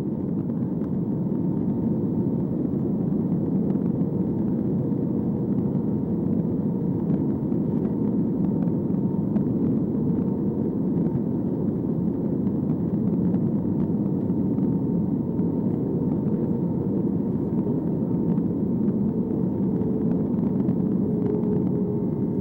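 Steady drone of an Airbus A320's jet engines, heard from inside the passenger cabin: a deep, even rumble with a faint steady hum over it.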